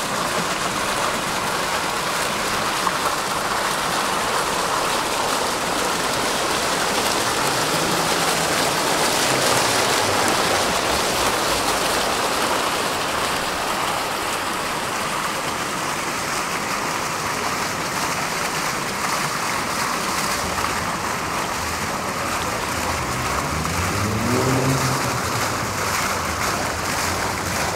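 Fountain jets splashing steadily into a stone basin, an even rush of falling water. A low rising whine from a passing vehicle pulling away comes through around the middle and again, more clearly, near the end.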